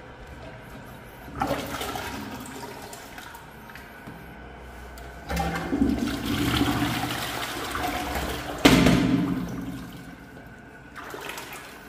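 Water sloshing and gurgling in a clogged toilet bowl and its drain as the rubber cup of a plunger is pushed into the outlet, in several bursts. The sharpest burst comes near the end. The pumping changes the pressure in the waste pipe to loosen the clog.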